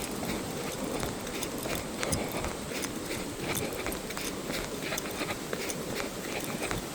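Footsteps of a person running uphill on a mountain trail: a quick series of footfalls over a steady rustling background.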